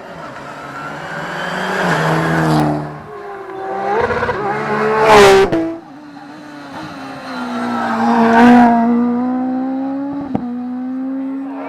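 Rally cars at full throttle, engines climbing in pitch through the gears, with two loud close passes about five and eight and a half seconds in. There is a sharp drop just before six seconds and a single crack near the end.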